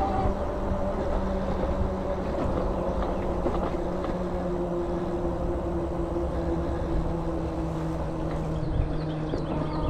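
E-bike on VeeMoto e-Huntsman tyres rolling along at a steady speed: a steady hum from the tyres and motor over a low rumble of wind on the microphone.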